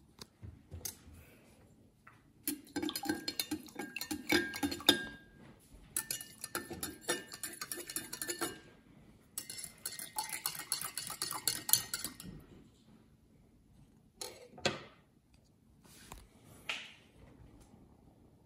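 A spoon stirring and clinking quickly against the sides of cups. It comes in three bursts of a few seconds each, each ringing at a slightly different pitch, then two single knocks near the end.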